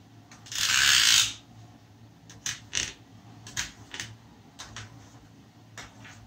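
A table knife cutting set jelly in a metal dish: a loud scrape of the blade along the metal about half a second in, then a string of short clicks as the blade tip meets the bottom of the dish with each cut.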